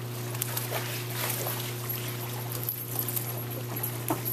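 Dogs paddling and splashing in a swimming pool, with scattered small splashes over a steady low hum.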